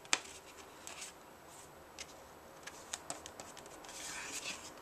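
Hands handling a metal Blu-ray steelbook case: scattered light clicks with soft scratching and rubbing.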